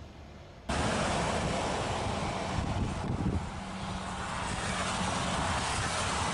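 Steady rushing noise of wind and drizzle outdoors, cutting in abruptly just under a second in. A faint low hum runs through the middle.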